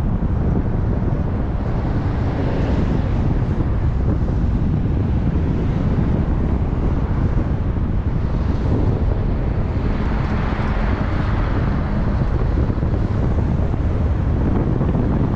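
Wind buffeting the microphone, a loud steady rumble that swells around ten seconds in.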